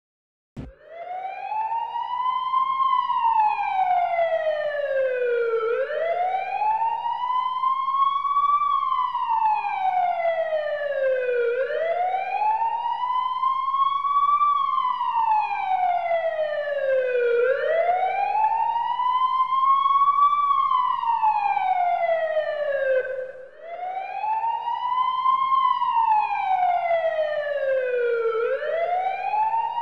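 Emergency vehicle siren in a slow wail, its pitch rising and then falling in a repeating cycle about every six seconds. It starts abruptly about half a second in and drops out briefly once, about three-quarters of the way through.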